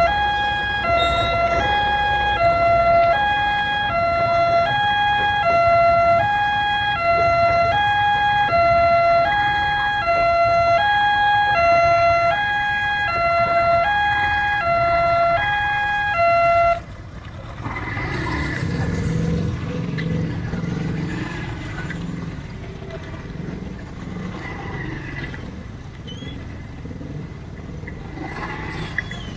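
Railway level-crossing warning alarm sounding a steady two-tone, alternating chime that cuts off suddenly about 17 seconds in. After it stops, motorcycle engines idle and pull away.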